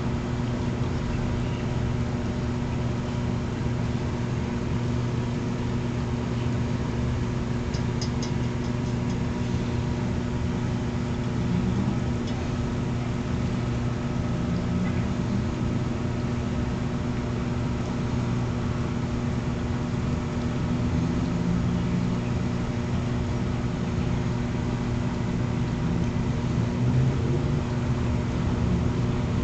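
Steady low machine hum, even in pitch throughout, with a few faint clicks about eight seconds in.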